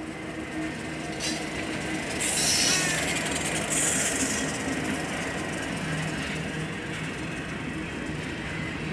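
Street traffic noise: a steady vehicle hum, with two short bursts of hiss a few seconds in.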